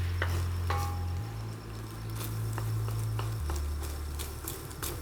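Background music carried by a deep bass line that changes note twice, with scattered sharp clicks of a spatula against the pan as cooked egg is broken up.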